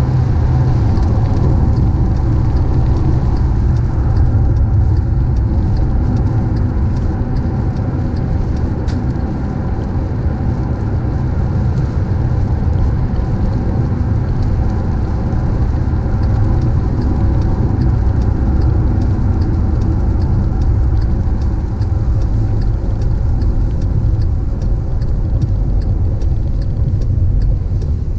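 A car driving at steady speed: a continuous low rumble of engine and road noise, with faint scattered light ticks above it.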